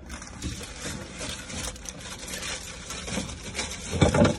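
Cans, bottles and containers being shifted around on refrigerator shelves: a steady rustle with small knocks and clinks, and a louder thump about four seconds in.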